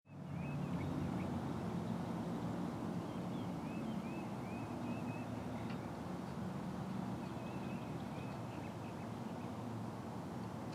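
Outdoor ambience: a steady low rumble like distant traffic, with small birds chirping now and then.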